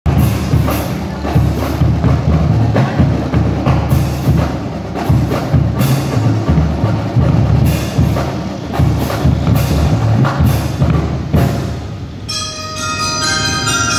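Drum and lyre corps music: drums beating a driving rhythm, then bell lyres come in with a bright melody about twelve seconds in.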